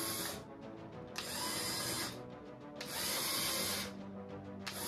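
LEGO Mindstorms EV3 motors whirring in short runs of about a second each, with brief pauses between, driving the chains that move a vending machine's dispensing cart.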